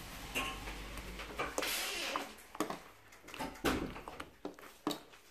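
Homemade slime being kneaded and stretched by hand, giving a string of irregular sticky clicks and squelches, with a longer smacking rasp about two seconds in.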